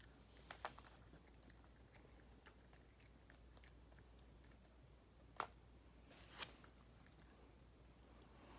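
Small dog chewing a crunchy snack: faint, scattered crunching, with two sharper crunches about five and six seconds in.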